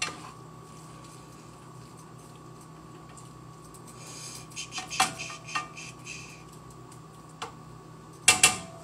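A utensil scraping and clinking against an All-Clad pan as ground turkey is stirred while it browns, with scattered clicks and scrapes in the middle and a couple of sharp, loud clanks near the end.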